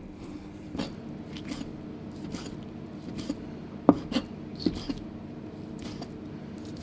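Kitchen knife dicing boiled octopus on a cutting board: irregular knocks of the blade striking the board, the loudest about four seconds in, over a steady low hum.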